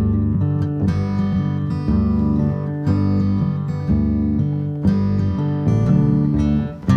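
Background music: acoustic guitar picked and strummed, with new chords about every second.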